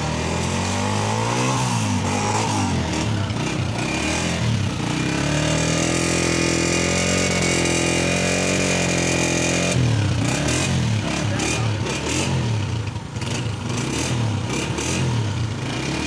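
Honda CG125's air-cooled single-cylinder four-stroke engine running and being revved by hand: its pitch rises and falls, holds steady for a few seconds in the middle, then swings up and down in repeated throttle blips about once a second.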